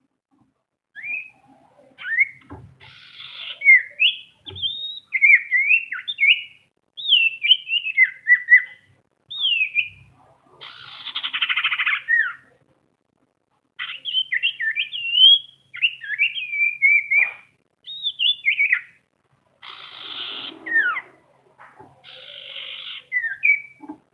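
Common iora (cipoh/sirtu) calling to a rival: rapid runs of short whistled notes sliding up and down, broken several times by longer harsh rasping chatters.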